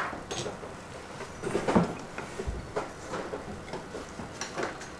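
Irregular scraping and scratching of a small tool working solder paste into the holes of a universal BGA reballing stencil, loudest about one and a half to two seconds in.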